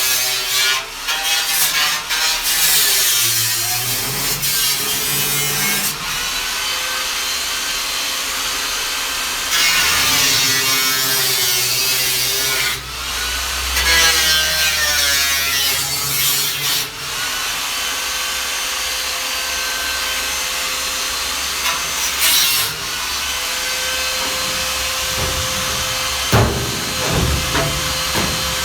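Power cutting tool slicing through the steel front wing of a classic Mini, its pitch rising and falling as the load on the cut changes. A few knocks near the end.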